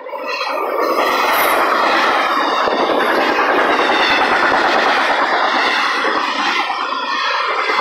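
Intermodal freight cars (double-stack container well cars and trailer flatcars) rolling past: steady wheel-on-rail noise with a rapid clatter of wheels over the track. It grows louder about a second in.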